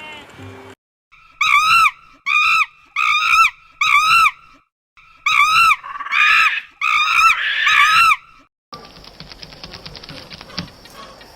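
A series of about eight short, high-pitched animal calls, each rising and falling in pitch, in two quick groups; near the end they give way to a rapid, dense clicking and crackling.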